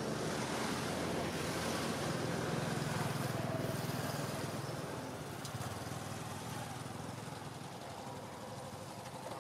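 Engine hum of a passing motor vehicle, loudest a few seconds in and fading toward the end.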